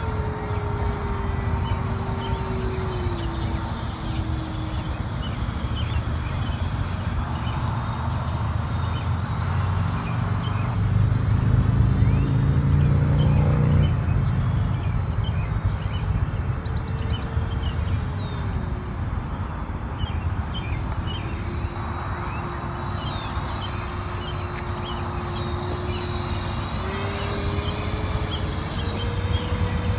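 The 64mm electric ducted fan of an E-flite F-15 Eagle RC jet whining in flight, its pitch sliding down and back up with throttle and passes, over a low rumble of wind on the microphone. It gets loudest about halfway through.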